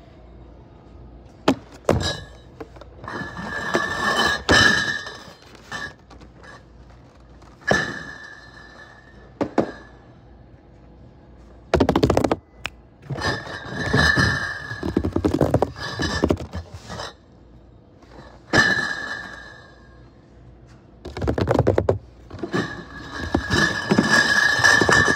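Cardboard beer cases being slid across a stack of other cases and set down on a pallet. Repeated bursts of cardboard scraping on cardboard, with a thunk as each case lands.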